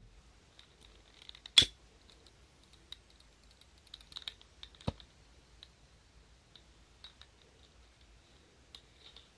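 A sharp click about one and a half seconds in from a gas lighter's push-button igniter, then small clicks and taps as the model steam engine's little metal burner tray is handled and lit. There is a second sharp click about five seconds in.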